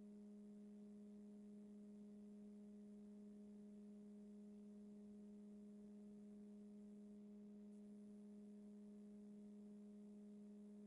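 Near silence with a faint, steady low hum: one low tone with a couple of fainter overtones, unchanging throughout.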